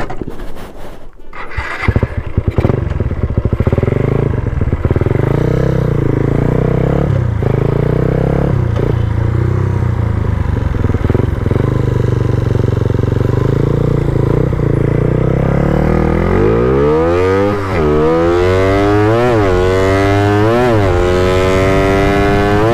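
Suzuki Raider R150 motorcycle's high-compression single-cylinder engine, heard from the saddle, running steadily as the bike is ridden, then about two-thirds of the way through pulled hard at full throttle through several upshifts, the pitch climbing and dropping back at each shift about a second and a half apart.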